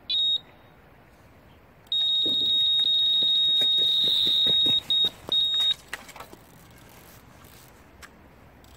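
Electronic carp bite alarm sounding: one short high beep, then a couple of seconds later a steady continuous tone for nearly four seconds that breaks up briefly near the end. This is a run: a fish taking line on the rod.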